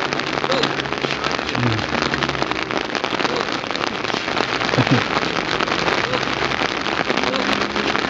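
Heavy rain falling steadily, a dense patter of countless drops on the ground and the people standing in it.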